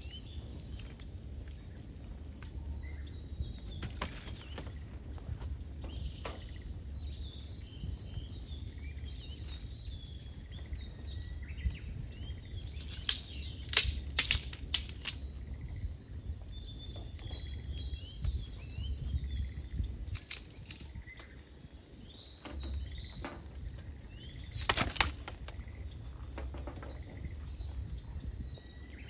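Songbird singing the same phrase again and again, about every eight seconds, over a steady low rumble. A few loud, sharp snaps stand out around the middle and again near the end.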